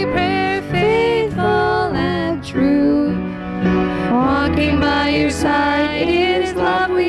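A slow gospel song sung by a young voice into a microphone, with piano accompaniment.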